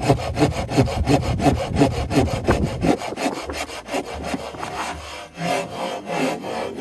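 Folding hand saw cutting through a branch of firewood in quick back-and-forth strokes, about four or five a second. The deep, heavy part of the rasp falls away about three seconds in, while the strokes go on lighter and less even.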